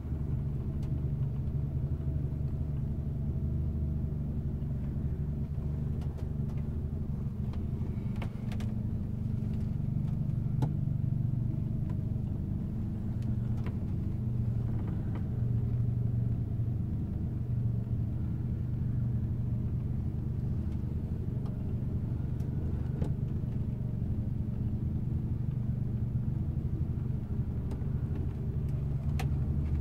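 Boat's engine running steadily, a low rumble heard from inside the cabin of a Buckingham 25 cruiser, with a few faint knocks.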